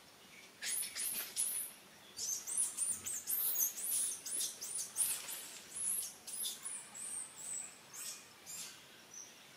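A young macaque squealing: a rapid run of short, high-pitched squeaks and screams, starting about half a second in, densest in the middle and thinning out near the end.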